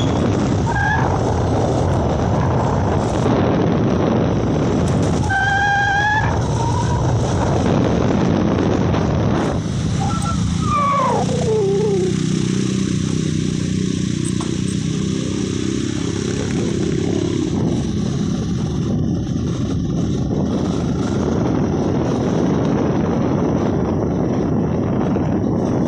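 Steady loud rumbling noise of travel along a road, crossed by three brief pitched calls of unknown origin: a short one about a second in, a held one near six seconds, and one sliding down in pitch around eleven seconds. These are the strange sounds the recorders could not explain.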